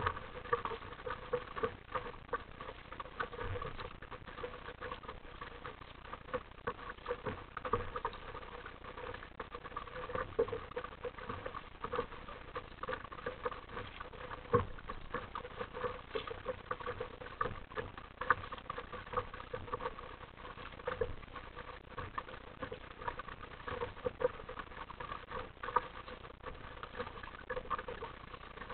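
Small waves lapping and splashing against the plastic hull of an RTM Mambo sit-on-top kayak, a busy, irregular patter of little slaps and knocks with no let-up.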